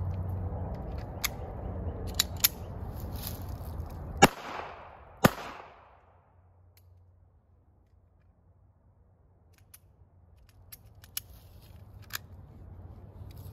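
.380 pistol firing two shots about a second apart, each with a trailing echo. Fainter sharp clicks come before and after the shots, the pistol's action snapping on rounds that don't go off, a misfire problem the owner says this .380 has.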